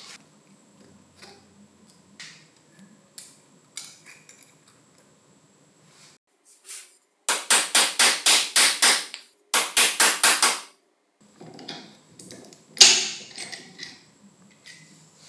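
Hand-tool work on the parts of an old angle grinder: scattered light clicks and knocks, then two quick runs of sharp striking strokes at about five a second, then a few more knocks with one loud hit near the end.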